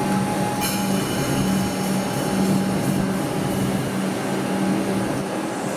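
A train running with a steady rumble and a constant low hum, with one sharp metallic clack about half a second in.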